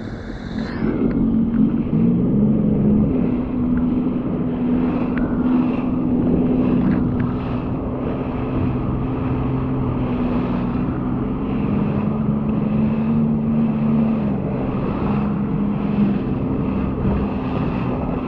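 Sea-Doo personal watercraft engine running steadily, its pitch shifting a little as the throttle changes, over a rush of water and wind.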